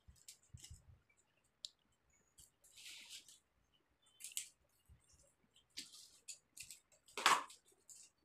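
Adhesive tape pulled off its roll in several short, crackling rips, the loudest about seven seconds in, with a few soft handling knocks near the start.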